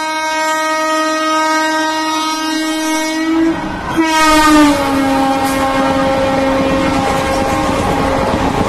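Electric locomotive's horn held in one long blast as the train runs through the station, its pitch dropping about four seconds in as the locomotive passes close by. The rumble and clatter of the coaches going by at speed build up under the horn from that moment on.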